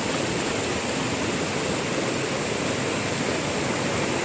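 Waterfall's water rushing at a steady, even level.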